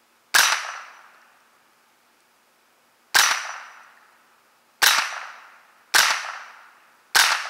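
AR-15 rifle with a CMMG Bravo .22 LR conversion bolt carrier firing regular .22 Long Rifle rounds semi-automatically. Five sharp shots, the gaps shrinking from about three seconds to about one second, each shot dying away over about a second.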